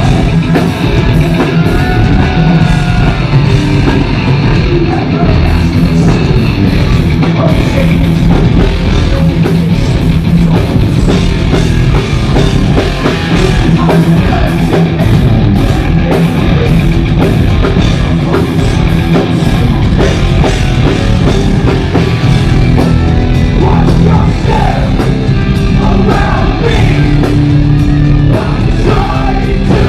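Heavy metal band playing live and loud: distorted electric guitars, bass and a drum kit driving a steady rock beat.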